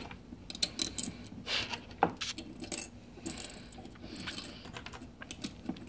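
Small metal clicks and clinks, irregular and scattered, as stainless steel screws, nuts and washers are handled and set into a slotted aluminum plate.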